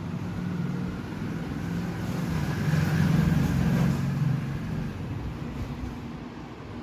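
A road vehicle's engine running past, a low hum that grows louder to a peak about three seconds in and then fades.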